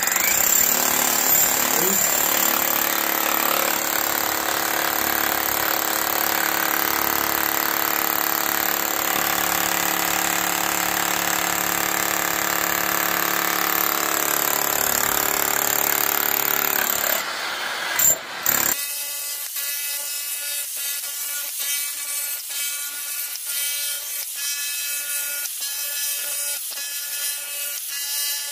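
Milwaukee K545S 1300-watt electric SDS-max breaker hammer running steadily while its chisel bit breaks up packed earth and stone, on its low setting. About two-thirds of the way through the sound breaks off briefly and returns thinner, with a regular chattering rhythm.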